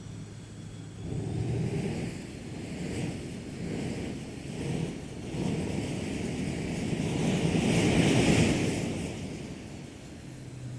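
Rushing engine noise, rising in uneven surges to its loudest about eight seconds in, then dying away. A steady low hum sits under it at the start and returns at the end.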